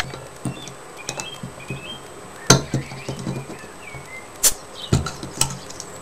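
Metal bottle opener of a Leatherman Skeletool being worked against a glass beer bottle's crown cap: a few sharp metal clicks and taps spread out, two of them much louder than the rest, as it is levered at the cap.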